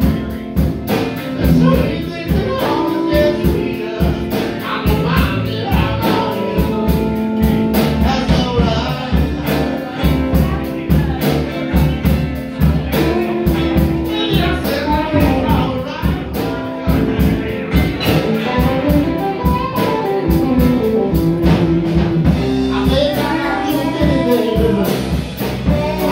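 Live rock band playing electric guitars, bass and drum kit, with a vocalist singing over a steady drum beat.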